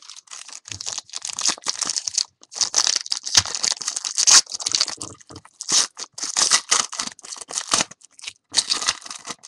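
Foil wrapper of a 2011 Playoff Contenders football card pack being torn open and crinkled, in several bursts with short pauses between them.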